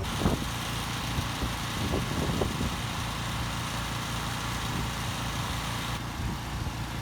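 An engine running steadily at idle, a constant low drone.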